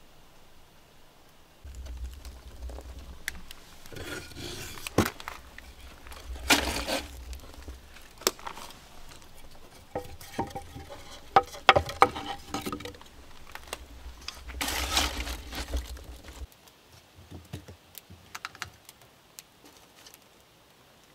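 Split firewood being handled: logs knocking and clattering against each other as they are pulled from a stacked woodpile, with short scraping rustles. A low rumble runs underneath and cuts off suddenly near the end.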